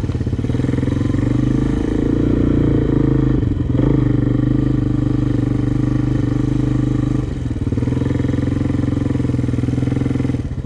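Single-cylinder four-stroke Honda sport quad engine running steadily at low speed. Its note dips and changes briefly about three and a half seconds in and again a little after seven seconds.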